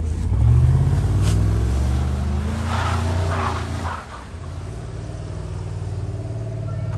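Chevrolet Tahoe's V8 engine revving hard as the SUV spins donuts with its wheels spinning in deep snow. The engine note climbs sharply just after the start and holds loud, drops off briefly about four seconds in, then picks up again and runs steadily.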